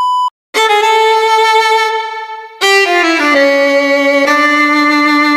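Background music: a violin playing long held notes, gliding down to a lower note about three seconds in. It is preceded by a short steady beep at the very start.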